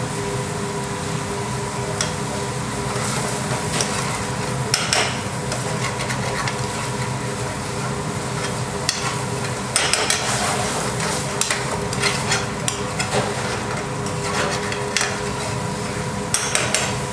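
Metal spoon scraping and knocking against the inside of a metal frying pan as thick rogan josh curry sauce is stirred and the spices are wiped down from the pan's sides, with irregular clatters thickest in the second half. Under it the sauce sizzles over a gas flame, against a steady kitchen hum.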